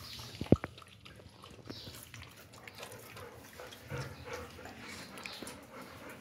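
Rottweiler lapping water from a bowl under an upturned water-jug dispenser, with many small wet clicks and one sharp knock about half a second in.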